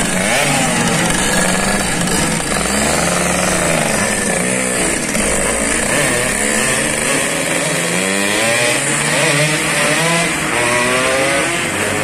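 Yamaha RX-King 135cc single-cylinder two-stroke motorcycles on Boban C33 aftermarket exhausts being revved over and over, the engine pitch rising and falling again and again, with more than one bike going at once.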